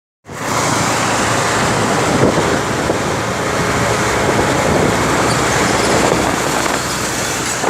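Steady, loud running noise of a moving vehicle passing through a tunnel: an even rumble and rush with no pauses.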